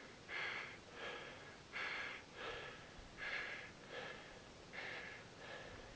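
Heavy breathing close to the microphone: a person panting in quick, regular breaths, a little over one a second.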